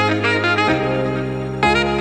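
Background music: a melodic lead over sustained bass notes, with the harmony changing twice.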